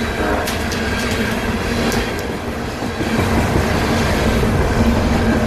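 Freight train's coal hopper cars rolling past on the rails: a steady low rumble of wheels on track, with a few sharp clicks in the first second or so and a faint steady hum, growing a little louder about three seconds in.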